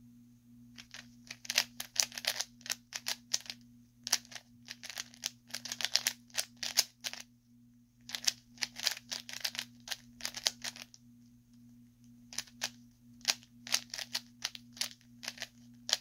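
Plastic 3x3 Rubik's cube being twisted quickly by hand, its layers clicking and clacking in rapid runs of turns with short pauses between them.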